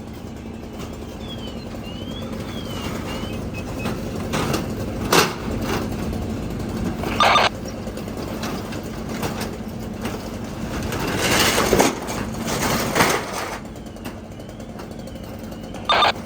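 Fire apparatus engines running at a fire scene, a steady hum under the scene, with several sharp knocks and short loud hissing bursts, and a faint up-and-down warbling tone twice.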